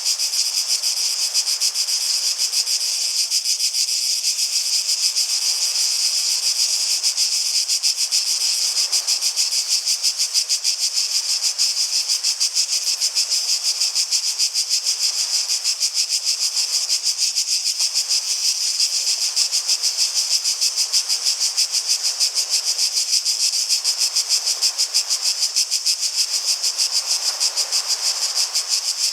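Cicadas singing in a steady, high-pitched chorus with a rapid, even pulsing.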